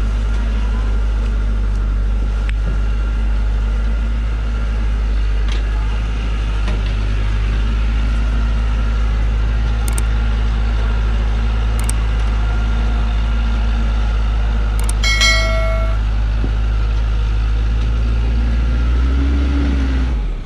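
Loaded logging truck's engine running steadily under load as it crawls up a steep dirt track, a deep continuous drone. A brief high tone sounds about fifteen seconds in, and the engine note rises and falls briefly near the end.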